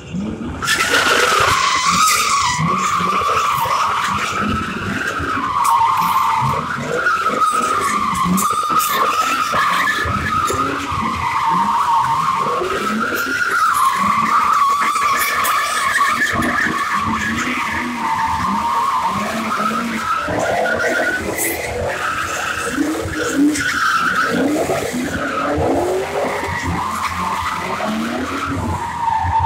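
Car tires squealing without a break as a car spins donuts and burnouts on asphalt, one wavering high squeal that starts abruptly just after the start. The engine revs underneath.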